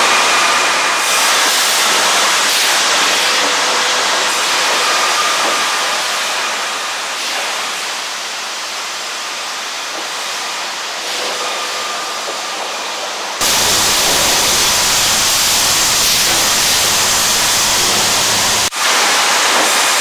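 Sawmill machinery running: a loud, dense, steady noise of conveyors and saws with a few faint whining tones. About two-thirds of the way through the noise jumps louder and gains a low rumble, and near the end it drops briefly and changes again.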